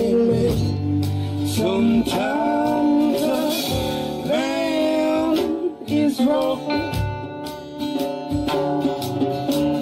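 A song with guitar accompaniment and a singing voice.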